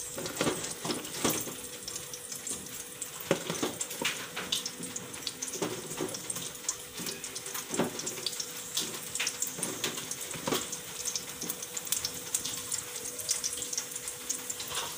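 Chicken nuggets frying in hot oil in a frying pan: a steady sizzle with frequent crackling pops, as fresh pieces are added to the oil.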